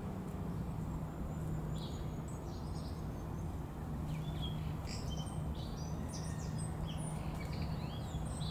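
Small birds chirping in short, high calls that grow busier in the second half, over a steady low background hum.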